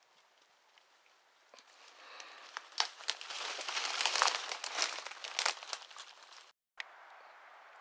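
Dry brush and twigs crackling and snapping underfoot as someone pushes through undergrowth, building up over a few seconds with many sharp snaps, then cutting off abruptly near the end.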